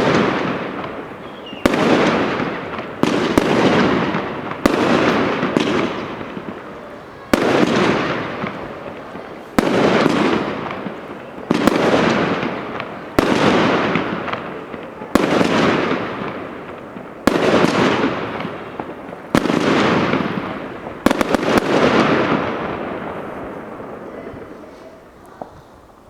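Fireworks battery firing shot after shot: a sharp bang about every one and a half to two seconds, each trailing off into a long fading crackle. After the last shot, about three-quarters of the way through, the sound dies away.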